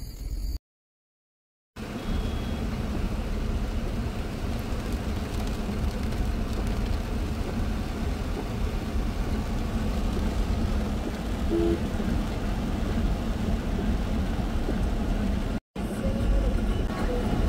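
Steady road and engine rumble of a moving car heard from inside the cabin, after a second of silence near the start and with a very short dropout near the end.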